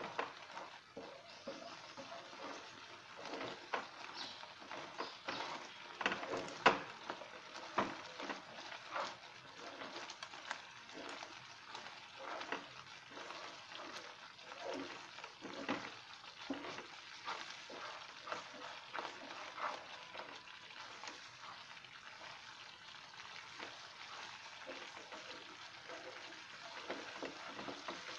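Almond halwa mixture of crushed roasted almonds in milk sizzling and bubbling in a nonstick kadai while a silicone spatula stirs and scrapes the pan in quick irregular strokes; the milk is cooking down and the mixture thickening. A sharp knock about six and a half seconds in.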